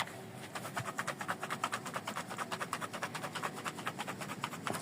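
A can of cooling-system leak sealer being shaken hard in a quick, even rhythm of about eight shakes a second, to mix its thick, sludgy contents before use.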